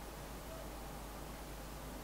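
Steady faint hiss of room tone over a low hum, with no distinct event.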